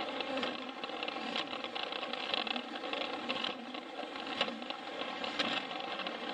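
Plarail battery-powered toy train running steadily, its small electric motor and plastic gearbox whirring, with a few sharp clicks as it rolls over the plastic track.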